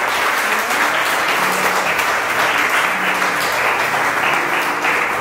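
Audience applauding: a steady round of clapping.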